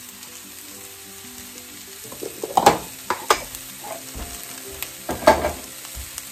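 Sliced onions and bell peppers sizzling in hot oil in a skillet just after going in. A few sharp knocks stand out, about two and a half seconds in, a moment later, and again past five seconds.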